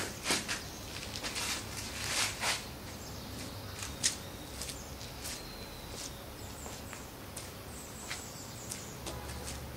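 Shoes scuffing and stepping on a paved road, with clothes swishing, as a martial-arts practitioner steps and turns through a slow palm form. The scuffs come at irregular moments with a steady outdoor hush behind them.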